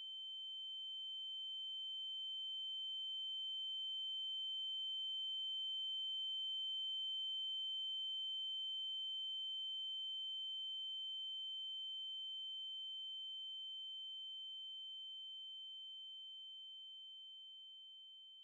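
A steady, high-pitched electronic tone with a fainter lower tone beneath it, slowly swelling for about seven seconds and then fading away.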